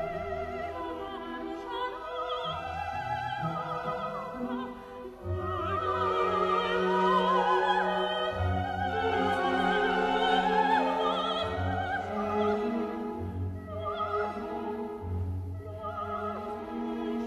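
Operatic singing with orchestral accompaniment: a voice with strong vibrato over sustained strings, growing louder about five seconds in.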